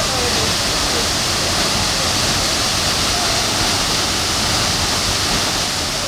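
Waterfall pouring over rocks into a pool: a steady, continuous rush of water.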